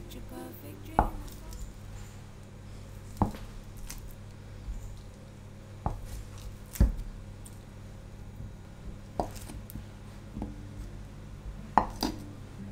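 Kitchen knife cutting a block of cream cheese into cubes, the blade knocking on a wooden cutting board: about eight separate knocks at uneven intervals, with a pair close together near the end.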